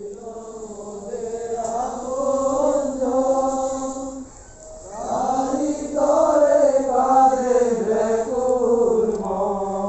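A group of voices chanting a prayer in unison, slow and sustained, in long phrases with a short break about four and a half seconds in.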